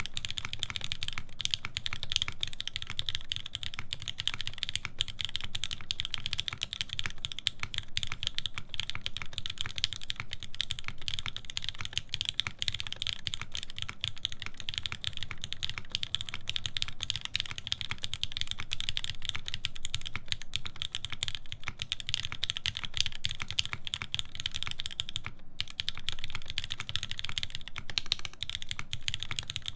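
Fast, continuous typing on a mechanical keyboard with lubed linear Cherry MX Black switches and an aluminium plate: dense key clacks with a brief pause about 25 seconds in.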